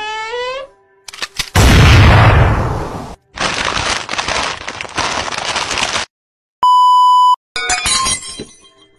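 Glass-breaking sound effect: a loud crash of shattering glass, followed by a few seconds of noisy clatter. A short steady beep sounds about seven seconds in, then more brief clatter.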